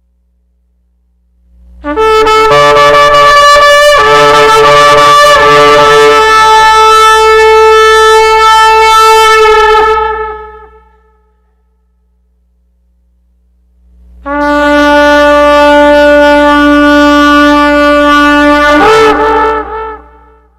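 A shofar (ram's horn) sounded in two long blasts, the first about nine seconds and the second about six, with a pause between them. The second blast wavers and breaks in pitch near its end.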